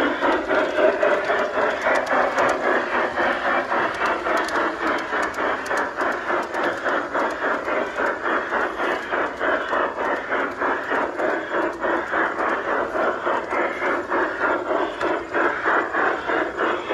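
G-scale model train of ore cars and a caboose rolling along garden railway track, its wheels making a steady, rapid, rhythmic clatter on the rails.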